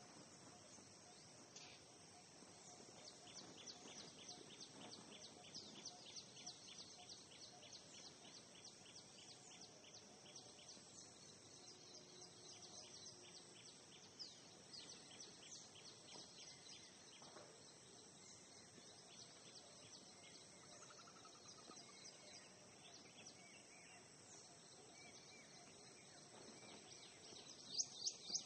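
Faint background hiss with quick, high-pitched chirps repeating through it, and a louder cluster of chirps near the end.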